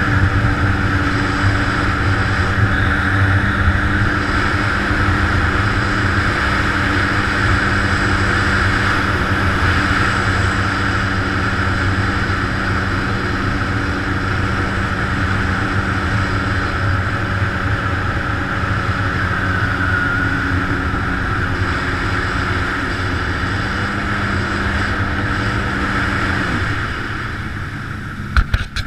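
Yamaha jet ski's engine running steadily at cruising speed, with water rushing past the hull. Near the end the engine eases off, and a few sharp knocks sound close to the camera.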